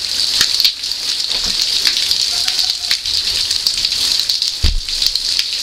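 Heavy rain pouring onto pavement and puddles, a steady hiss full of close drips and splashes, with one brief low thump about four and a half seconds in.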